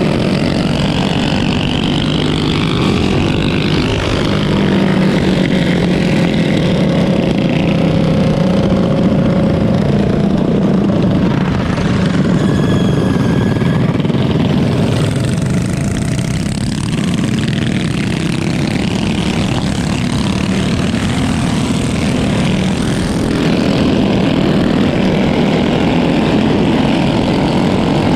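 Mini bike engines running together at a steady level, a continuous drone.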